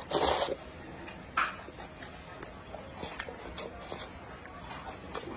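A person slurping noodles: a loud slurp at the start and a shorter one about a second and a half in, then soft chewing with small wet clicks.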